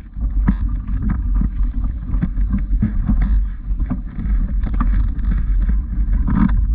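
Wind buffeting the microphone with a heavy low rumble, over footsteps on a dirt-and-gravel track at a walking pace of about two steps a second.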